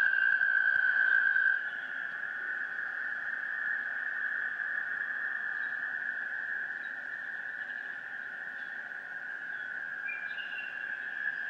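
Field recording playing as a dance soundtrack: a steady high-pitched drone that drops in level about one and a half seconds in, with faint chirps above it near the end.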